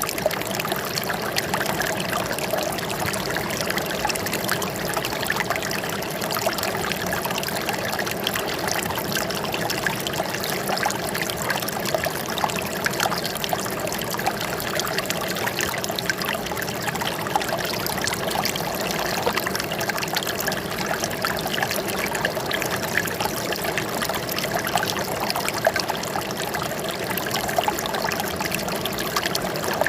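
Running water trickling and splashing steadily, with a constant flow and no pauses.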